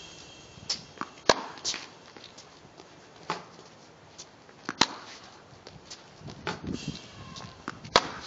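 Tennis racket striking the ball three times, a little over three seconds apart, with fainter knocks of ball bounces and footsteps on the hard court in between.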